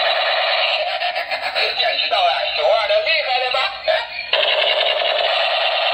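Battery-powered toy rifle playing its electronic sound effects: a loud, warbling electronic tune. It cuts out briefly about four seconds in, then starts again.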